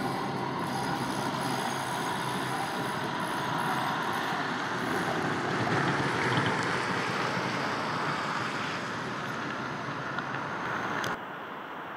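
A CAF Urbos 100 tram running away into the distance under a steady rush of wind and street noise. The noise swells about halfway through and cuts off suddenly near the end.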